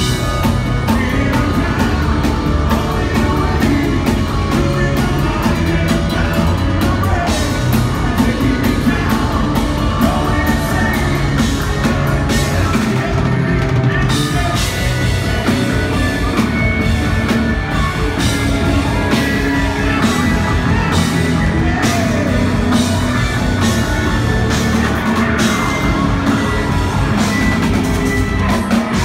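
Progressive metal band playing live: a drum kit with double bass drums, electric bass, double-neck electric guitar and keyboards, with a male lead vocal over the top.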